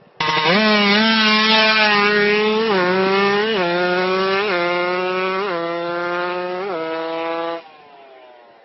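Motor scooter engine running hard: a loud buzzing drone that cuts in suddenly and cuts out suddenly near the end, its pitch jumping up briefly about five times in the middle.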